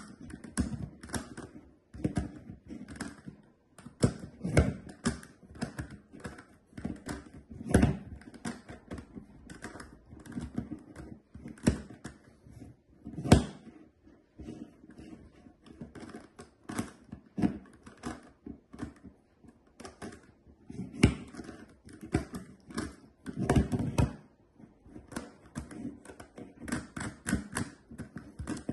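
Plastic GAN Megaminx puzzle being turned one-handed: its faces click in quick, irregular runs of several a second, with a few louder knocks among them.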